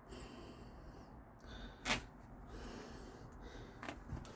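Faint room tone with a person's short, sharp breath through the nose about two seconds in, and a softer one near the end.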